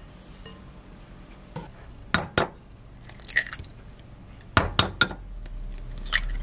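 Eggs knocked against and cracked into a small glass mug: sharp clinks of shell on glass, a pair and then a quick run of three, with egg white dribbling into the mug.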